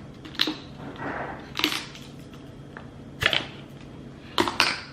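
About five sharp, irregularly spaced clicks and knocks of hard homemade cornstarch blocks being handled and knocked against their container, with a soft rustle between them.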